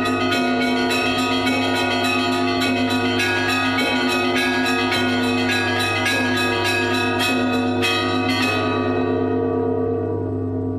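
Church bells pealing in a fast, even chime of about four or five strikes a second. Near the end the strikes stop and the bells ring on, slowly fading.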